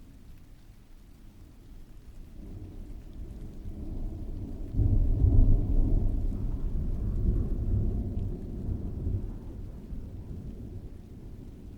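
A long roll of thunder over steady rain: a deep rumble builds from about two seconds in, swells suddenly to its loudest near five seconds, then rolls away over the next several seconds.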